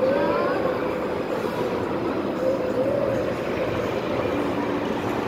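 Amusement-park kiddie train ride car rolling along its track with a steady, even rumble.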